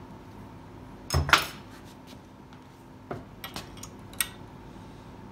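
Steel hand tools clanking against a steel workbench and fittings: one loud double clank about a second in, then a few lighter metallic clicks as a wrench works the screws.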